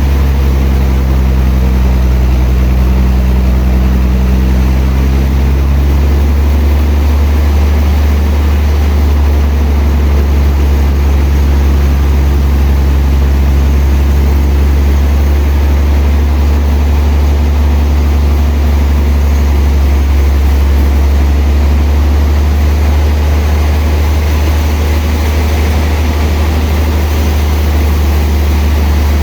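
Sawmill machinery running steadily, a loud, low, unbroken drone.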